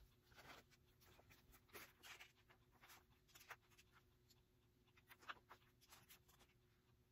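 Faint scattered rustles and light clicks of hands handling a stroller's frame and fabric, over a faint steady hum.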